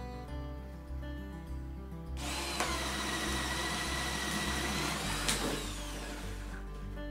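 Cordless drill with a 27 mm auger bit boring through an SPF board: the motor whines steadily and the bit chews the wood from about two seconds in, then stops abruptly about five seconds in. Background music plays throughout.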